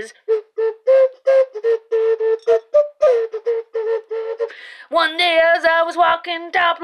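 A woman's voice running through quick short staccato notes on one steady pitch, several a second. From about five seconds in she sings with a wavering pitch.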